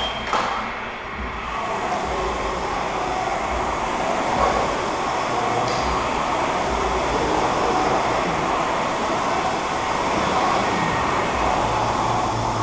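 Several air-resistance rowing machines being rowed at once: their flywheel fans make a steady rushing whoosh.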